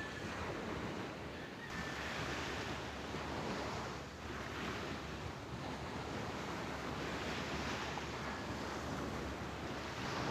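Surf washing onto a beach, a steady rush that swells and eases every couple of seconds, with some wind on the microphone.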